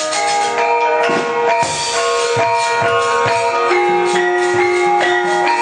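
Javanese gamelan ensemble playing: ringing metallophone and gong-chime notes move in a busy melody over steady drum strokes and sharp percussive knocks.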